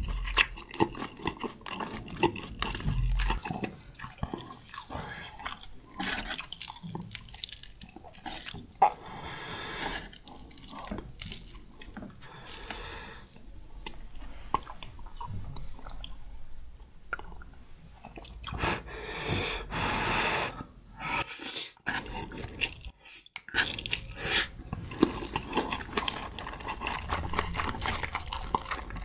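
Close-miked eating sounds: wet chewing and mouth clicks while eating spicy stir-fried Buldak noodles, with two longer slurps of noodles, one about nine seconds in and one about twenty seconds in.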